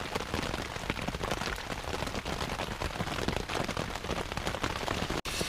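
Steady rain falling on the canvas of a Polish poncho lavvu tent, heard from inside: a dense, even patter of drops on the cloth. It drops out abruptly for an instant near the end.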